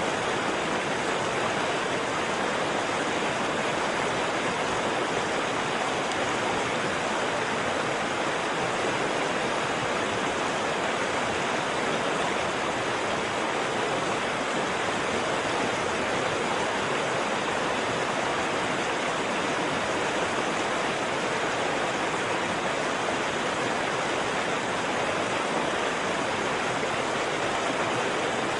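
Waterfall: a steady, unbroken rush of falling water that does not change.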